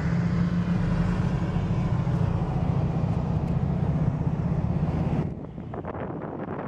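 Steady road and engine noise inside a car cabin at highway speed, with a strong low hum. About five seconds in it drops and gives way to wind gusting on the microphone.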